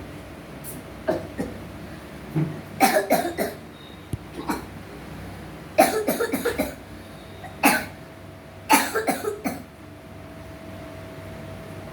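A boy of about 12 coughing again and again, in fits of several quick coughs with single coughs between. The doctor takes it for an acute flare-up of a chronic allergic cough.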